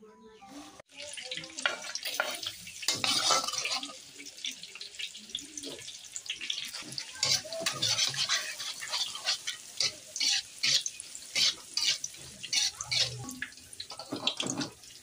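Kitchen utensils clinking and scraping with water splashing, in quick irregular strokes that start suddenly about a second in.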